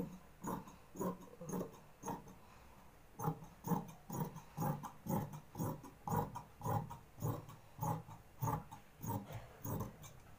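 Large tailor's shears cutting through grey stretch knit tracksuit fabric: a steady run of snips, about two a second, with a short pause about two and a half seconds in.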